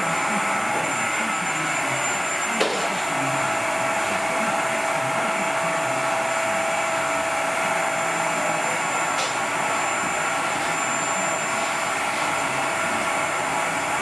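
Vacuum cleaner running steadily with a constant whine, with a single knock about two and a half seconds in.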